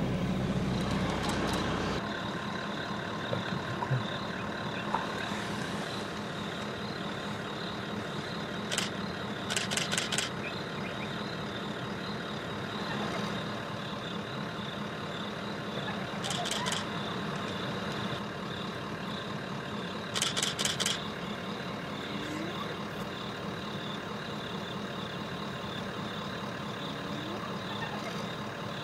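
A safari vehicle's engine idling, falling away about two seconds in, under a steady high insect chorus. Four short high rattles stand out at intervals.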